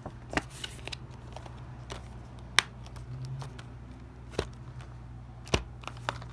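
A plastic Blu-ray case being handled: a handful of sharp clicks and taps a second or two apart, over a steady low hum.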